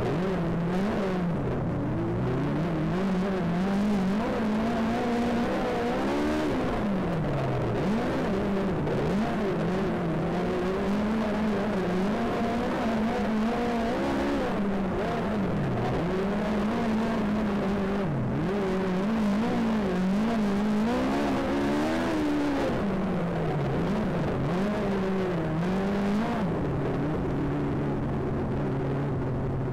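Speedway race car engine running hard, its note rising and falling over and over as the throttle is eased and reapplied around the track. The sound cuts off abruptly near the end.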